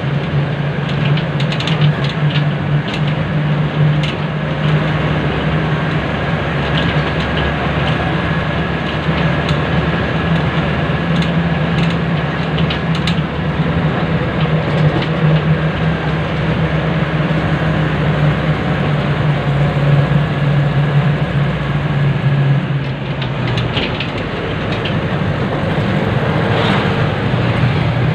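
Car engine running steadily while driving, a low steady hum under a rush of wind and road noise, with scattered light clicks; the engine note eases and dips briefly about three-quarters of the way through.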